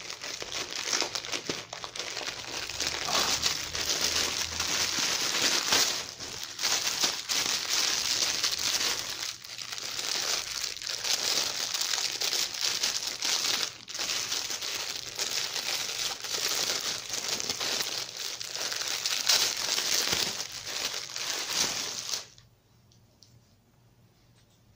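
Plastic packaging crinkling and rustling as hands open a mailer bag and clear plastic bags. It stops suddenly about 22 seconds in, leaving near quiet with a few faint clicks.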